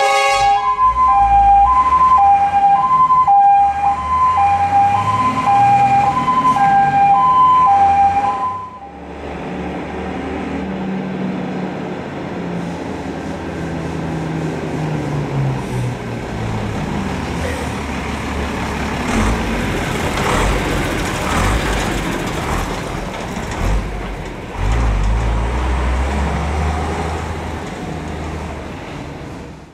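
Fire engine's two-tone siren switching between a high and a low pitch about once a second, until a cut about eight seconds in. After it a heavy fire truck's diesel engine runs without the siren, its pitch rising twice as it revs up and pulls away.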